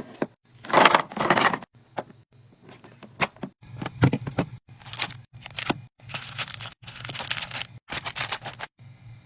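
Plastic packaging crinkling and rustling, with sharp clicks and knocks of items being handled while restocking a mini fridge. It comes in a string of short bursts that start and stop abruptly.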